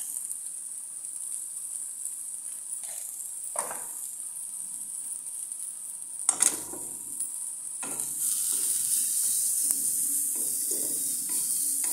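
Shredded cabbage sizzling as it fries in a steel kadai, with a few short knocks, the loudest about six seconds in. From about eight seconds in, the sizzle grows louder as a wooden spatula stirs and scrapes the cabbage around the pan.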